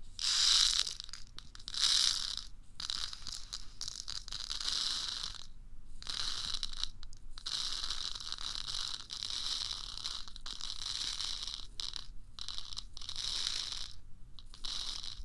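Close-miked ASMR scratching and rubbing: a thin handheld tool worked against a binaural dummy-ear microphone in irregular strokes, each lasting under a second to about two seconds. The two loudest strokes come in the first two seconds.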